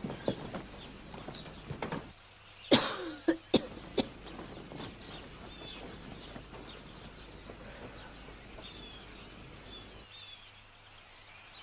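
Quiet background ambience with faint, brief high chirps of small birds, broken by a few sharp knocks and rustles of movement about three to four seconds in.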